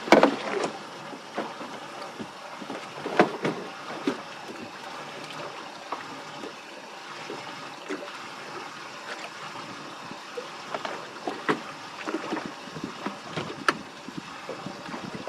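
Water lapping and gurgling against the hull of a small fishing boat, with scattered light knocks and clicks.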